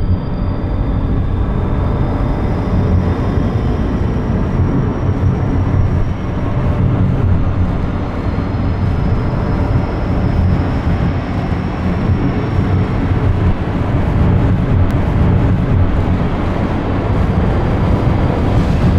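Steady, deep, muffled rumble of underwater pool ambience, with faint thin high tones above it and no distinct events.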